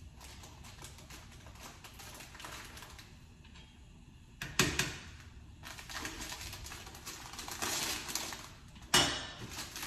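Kitchen prep handling noise: light clatter and rustling, with two sharp knocks, one about four and a half seconds in and one near the end.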